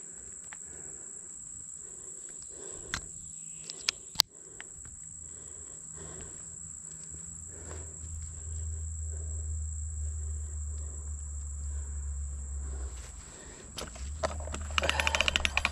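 Footsteps through pasture grass over a steady high trill of crickets. There are a few sharp clicks about three and four seconds in, and a low rumble in the second half. A fast, even rattling starts just before the end.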